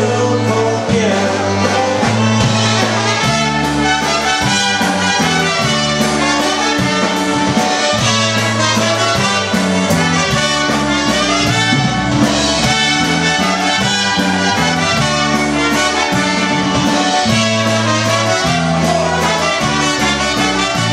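Live polka band playing an instrumental waltz passage: trumpet carrying the melody over concertina, with a stepping bass line and drums keeping a steady beat.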